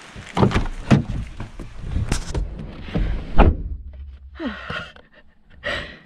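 A car's rear door being opened and slammed shut amid the knocks and thumps of someone scrambling into the back seat. The outdoor background cuts off after the loudest thud, about three and a half seconds in. Short breathy gasps follow inside the closed car.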